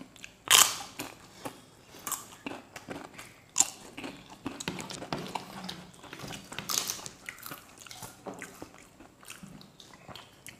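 Crisp papad (papadum) being bitten and chewed by two people, a run of sharp crunches, the loudest about half a second in, with softer chewing between.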